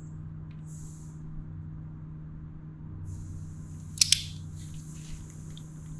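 A wrench tightening a small engine bolt to about 20 foot-pounds, with one sharp metallic double click about four seconds in and a few light ticks, over a steady low hum.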